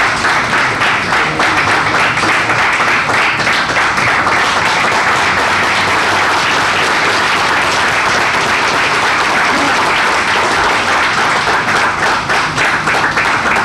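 A group of people applauding, many hands clapping together at once.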